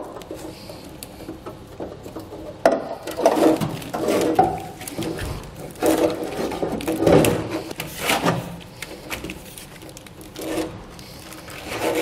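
Corrugated plastic wire loom of a trailer wiring harness rubbing and rattling as it is fed by hand through a hole in a pickup bed, in irregular bursts.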